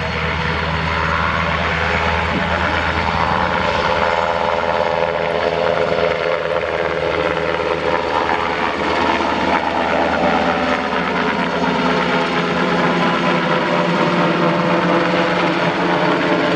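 Sikorsky S-70i Firehawk helicopter lifting off and climbing overhead: continuous rotor and turbine engine noise with several steady engine tones, growing slightly louder as it passes overhead.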